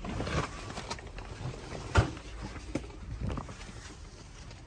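Tent canvas rustling as a flap is pushed aside, with scattered handling knocks and one sharp thump about two seconds in.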